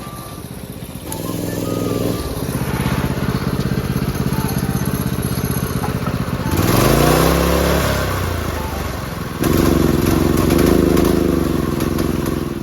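Mini bike's 212cc single-cylinder Predator Hemi engine running with the choke off while ridden, revving up and down with the throttle: it picks up about a second in, surges louder about six and a half seconds in, then again about nine and a half seconds in.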